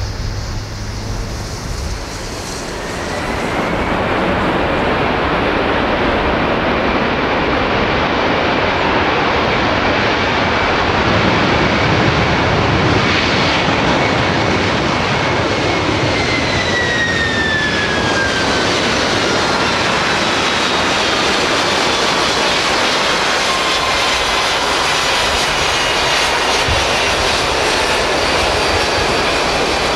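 Jet engines of a FedEx Boeing 767 freighter on the runway: a loud, steady jet roar that swells a few seconds in. Through the second half, whining engine tones fall steadily in pitch.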